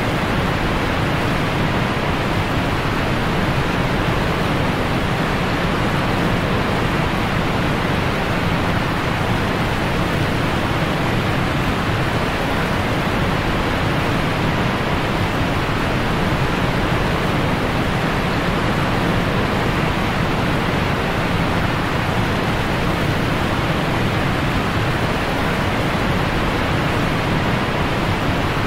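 Steady, unbroken rushing noise that does not change in level.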